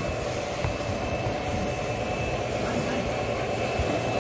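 Three-rail O-gauge model train rolling past, a steady rumble of metal wheels on the rails.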